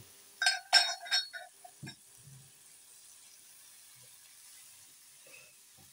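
A splash of water poured into a hot pot of frying onions, garlic, chicken and spices, hissing and sizzling in a few sharp bursts for about a second and a half as it is stirred in, then dying down to a faint hiss. The water is added so the spice masala does not burn.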